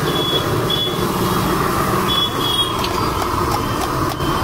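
Steady busy street noise, mostly traffic, with a few short high-pitched beeps.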